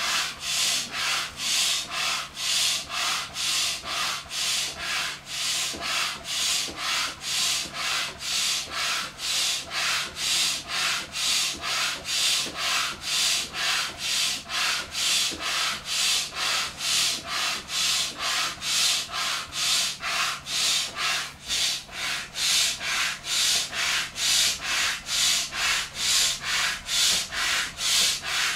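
Hand piston air pump worked up and down, pushing air through its hose into a vinyl inflatable dolphin: a steady rhythm of hissing strokes, about two a second.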